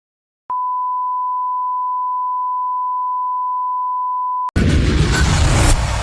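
A steady, pure electronic beep tone at about 1 kHz, held for about four seconds, then cut off by a sudden loud, deep crash that begins to fade near the end.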